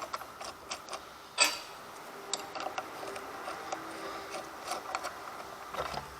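Small metal clicks and ticks as 8mm screws with lock washers are handled and threaded into an angle grinder stand's mounting bracket, with one sharper click about a second and a half in.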